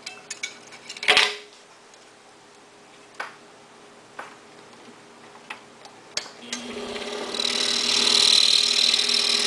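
A few clicks and one louder knock as the blade is fitted through the entry hole and clamped in an Excalibur scroll saw's upper arm. About six and a half seconds in the saw starts up and runs steadily, a low hum with a high whine, as the blade begins cutting the wood.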